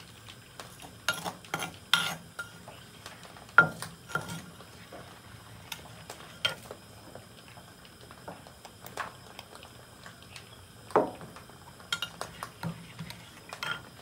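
Wooden pestle pounding and grinding in an earthenware mortar, making a sauce: irregular knocks, the loudest about three and a half seconds in and again at about eleven seconds, with softer knocks between.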